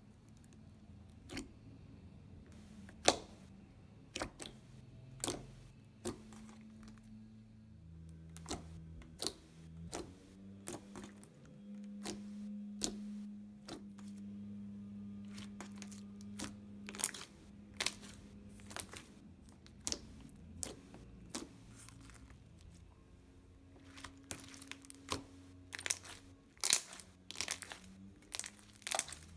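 Glossy, milky slime being worked by hand, giving a run of sharp, irregular clicks and bubble pops that come thicker near the end.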